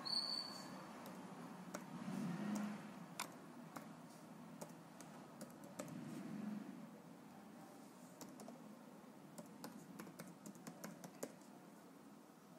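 Computer keyboard keystrokes as text is typed: irregular light clicks, coming in quicker runs in the second half. A brief high tone sounds right at the start.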